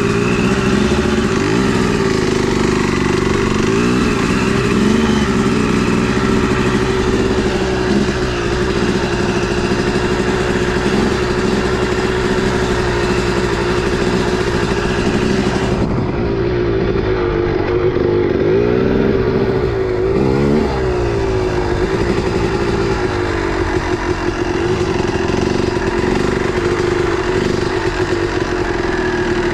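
Two-stroke motorcycle engine running while ridden, its revs rising and falling again and again as the throttle is worked. The sound turns muffled for a few seconds just past the middle.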